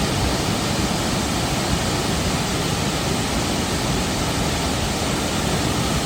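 Steady rushing of Burney Falls, a 129-foot waterfall, heard as an even, unbroken wash of falling water.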